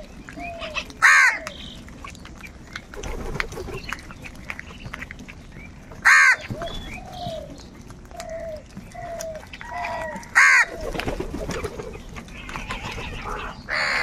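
A flock of house crows calling while they feed: three loud, harsh caws about four to five seconds apart, over softer short calls and small pecking clicks from the rest of the flock.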